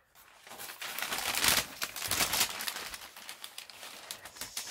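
Wrapping paper inside a shoebox rustling and crinkling as hands fold it back, in a run of quick crackles that is loudest around the middle.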